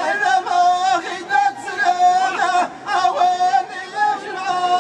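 Ahidous: a line of men chanting in unison in long, held, wavering phrases, with bendir frame drums struck now and then.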